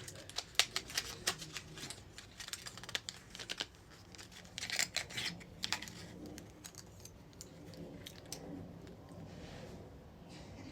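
Close-miked lipstick cases being handled: a quick run of small sharp clicks and taps, growing sparser and fainter after about six seconds.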